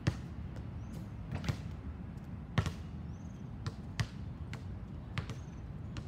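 Basketball being dribbled on a hard outdoor court: sharp, unevenly spaced bounces, about one a second, some with a lighter bounce close after.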